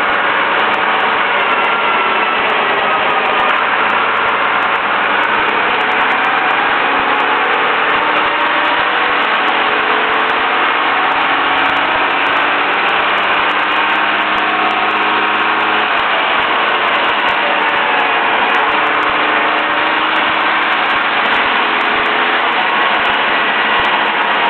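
Leyland National single-deck bus running on a road test with its newly fitted replacement engine, the engine note rising and falling steadily as the bus changes speed.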